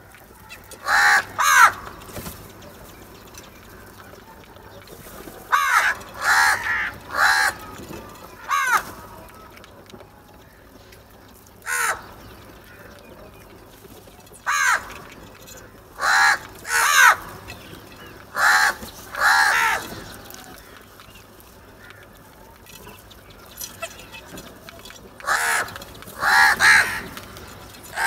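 A flock of house crows cawing: harsh calls in groups of one to three, repeating every few seconds with short pauses between.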